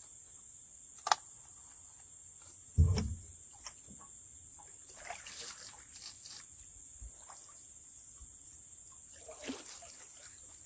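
Small water sounds around a canoe over a steady high hiss, with a few light clicks and one dull low thump about three seconds in, as something knocks against the hull.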